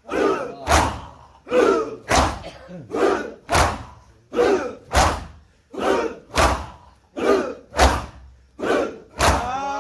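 Shia mourners doing matam in unison: a short group shout followed by a loud hand strike on the chest, repeating steadily about every second and a half, seven times.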